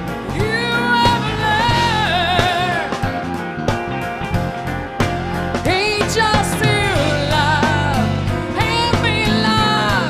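Live jazz band with drums, hand percussion, piano, bass and guitar, and a female singer holding long, wavering sung notes.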